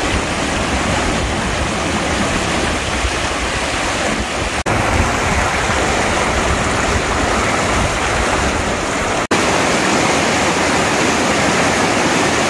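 River water rushing steadily, a dense, even noise, cut off for an instant twice.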